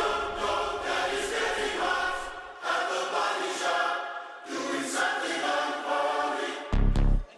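Background music: a choir-like sung intro in held phrases, with a deep bass hit near the end.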